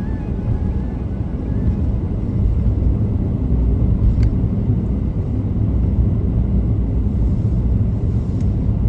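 Steady low rumble of a car driving, heard from inside the cabin, with one faint click about four seconds in.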